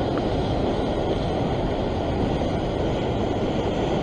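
Ocean swell washing over the shore rocks, a steady rushing noise with wind rumbling on the microphone.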